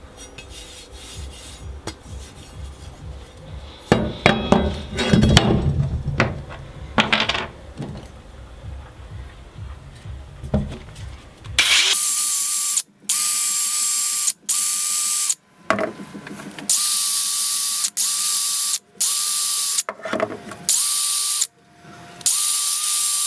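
Knocks and handling noise from work on a workbench, then from about halfway a power tool run in repeated bursts of about a second, starting and stopping sharply, with a steady high whine over a loud hiss.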